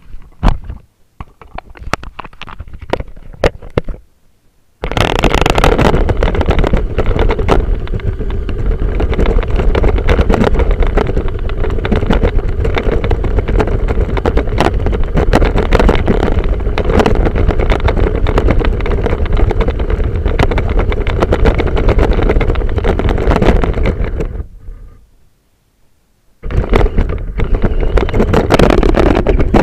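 Radio-controlled truck driving: after a few scattered clicks and rattles, the motor and drivetrain start about five seconds in and run with a steady, rough noise. The noise cuts out for about two seconds near the end, then starts again.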